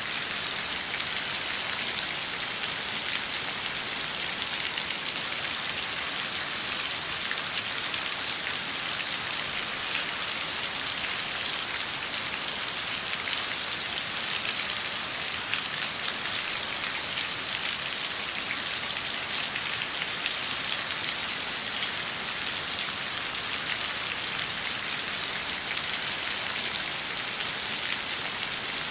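Steady rain falling on a hard surface: an even hiss with a fine patter of individual drops.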